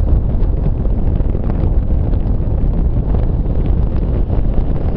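Wind buffeting the microphone on a moving 200cc motorcycle: a steady, loud, low rush of wind noise.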